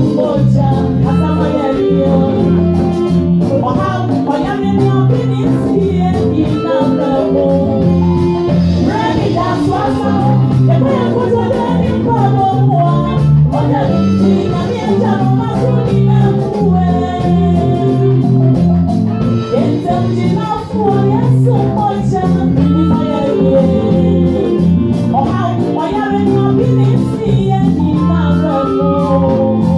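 Live gospel praise singing: a woman's lead vocal through a microphone, with backing singers, over steady rhythmic instrumental accompaniment played through the church PA.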